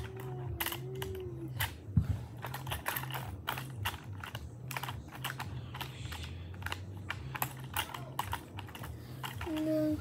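Quick, irregular light clicks and clacks of hard plastic as a toy race-car launcher and track are handled, with one louder knock about two seconds in, over a low hum.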